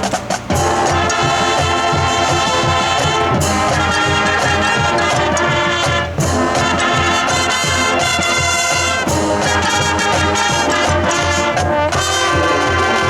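Marching band playing, led by brass (trombones and trumpets) over a low drum pulse. The full band comes in loudly about half a second in and keeps playing.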